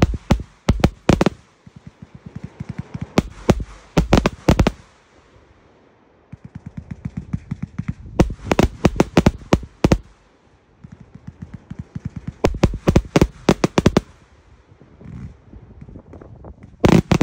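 A Sheeeeeetz's Revenge 288-shot firework cake firing in rapid volleys of sharp bangs as its shots launch and break overhead. Several volleys come one after another, each lasting a second or two, with short quieter lulls between them.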